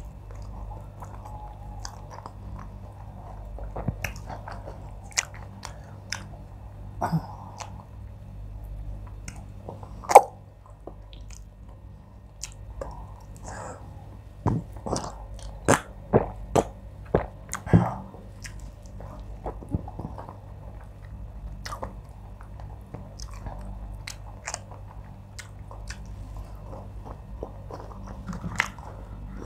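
A person chewing and swallowing soft wheat fufu with oha soup, picked up close by a lapel microphone. The wet clicks and smacks of lips and tongue are scattered throughout, with one loud click about a third of the way in and a quick run of them in the middle, over a steady low hum.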